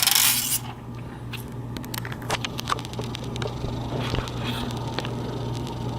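Plastic curing strip being peeled off a phone screen coated with windshield-repair resin: a short rasping rip in the first half second, then scattered light clicks and crackles from handling the film and phone over a steady low hum.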